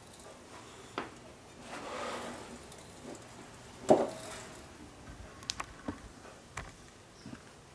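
Tools and metal parts being handled: scattered clicks and light knocks, with one louder clunk just before four seconds in that rings briefly.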